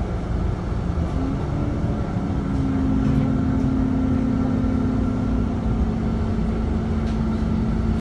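Bus running, heard from inside: a steady low rumble, with a steady motor hum that sets in about a second in.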